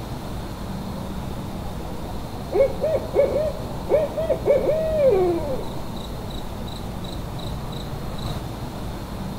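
Owl hooting: a quick run of about eight short hoots, each rising then falling in pitch, over about three seconds, ending in one longer hoot that slides down.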